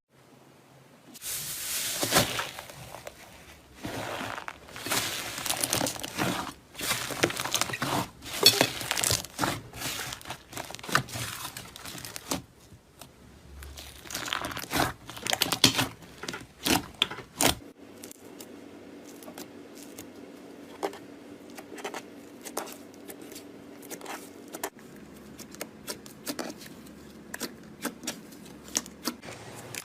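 Slime being squeezed and stretched by hand, giving a run of crackling, popping clicks and tearing squelches; the clicks grow sparser and quieter a little past halfway.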